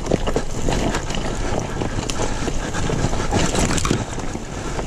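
Dirt bike engine running while under way, with wind noise on the microphone and scattered short knocks.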